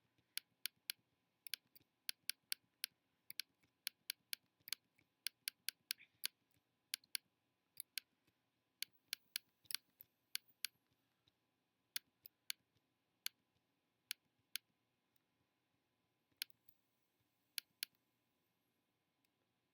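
Computer mouse clicking in quick, irregular runs, several clicks a second for the first ten seconds or so, then only now and then.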